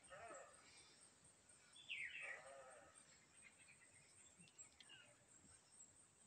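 Faint animal calls in the background: a short call at the start and a louder, falling call about two seconds in.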